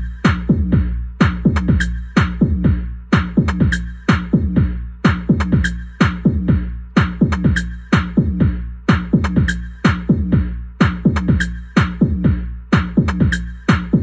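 Electronic dance music: a fast, regular drum-machine beat of sharp hits, with low notes that drop quickly in pitch after each hit, over a deep steady bass.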